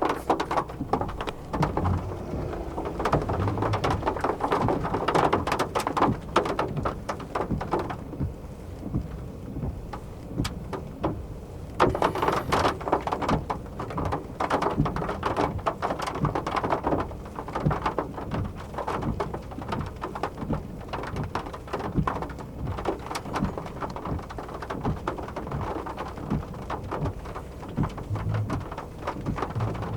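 Thunderstorm rain falling hard, countless drops clicking sharply on a hard surface over a steady hiss, with a low rumble underneath. The downpour swells suddenly about twelve seconds in.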